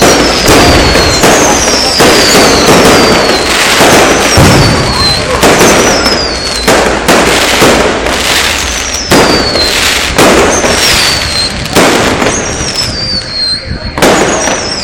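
Fireworks going off in a rapid string of loud bangs, about one a second, many with a whistle that falls in pitch just before or with the crack.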